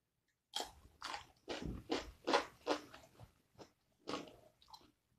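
Close-up crunching of a bitten slice of fresh cucumber being chewed, crisp crunches at about three a second that thin out toward the end.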